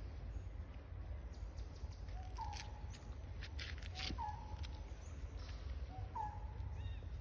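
Three short, clear, even-pitched animal calls about two seconds apart, over a steady low rumble, with some brief rustling clicks near the middle.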